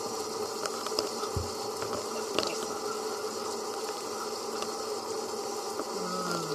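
Kitchen sink faucet running steadily, with a few faint knocks, one low thump about a second and a half in.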